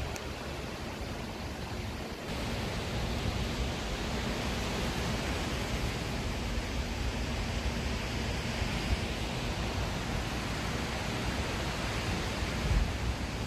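Strong wind rushing through the leaves of large trees, with wind buffeting the microphone; it picks up about two seconds in.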